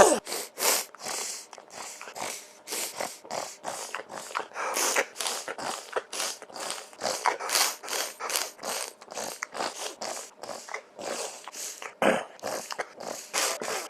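A person snorting through the nose over and over in imitation of a pig's grunting, a quick run of short snorts at about three a second.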